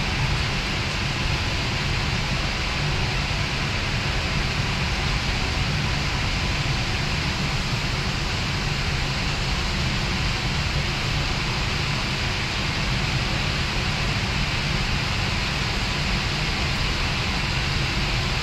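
Steady low rumble with an even hiss on the deck of the coastal ship MS Kong Harald under way: the ship's engine noise mixed with air rushing past the microphone.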